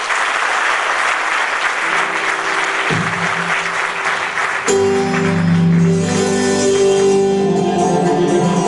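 Audience applauding, with a few low held keyboard notes coming in under the clapping. A little past halfway a live band strikes up a song, loud and steady.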